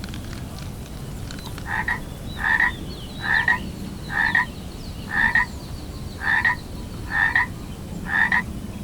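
A frog croaking: eight evenly spaced calls about a second apart, starting about two seconds in.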